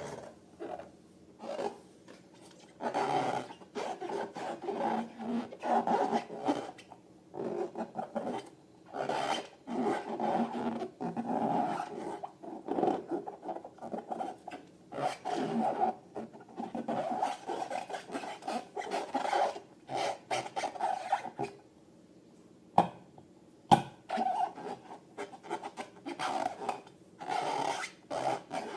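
Slime being worked by hand: rubbing and squishing in irregular bursts with short pauses between them. Two sharp clicks about a second apart come a little after twenty seconds in.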